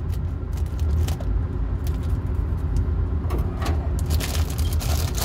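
A steady low machine hum, with the clear plastic grain-spawn bag crinkling and being cut across its top from about three seconds in.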